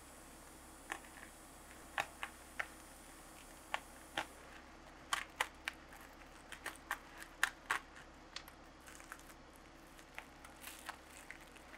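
Bubble wrap being handled and peeled off a new shock absorber body, crinkling and crackling in scattered, irregular sharp clicks, thickest in the middle.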